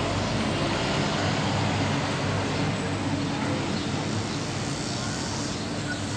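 Steady ambient background noise with a low hum, typical of distant road traffic.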